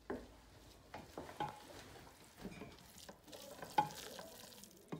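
A wooden spoon stirring thick, sticky cooked risotto in a stainless steel pot as grated pecorino romano is worked in. It makes wet squelching and irregular scrapes, with knocks of the spoon against the pot, the sharpest about four seconds in.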